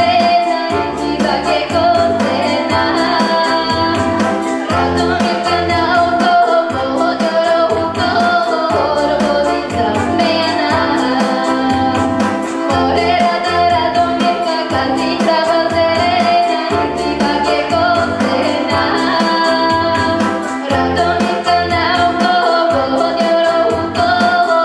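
A young female voice sings a Bulgarian folk song over instrumental accompaniment with a steady, pulsing bass beat.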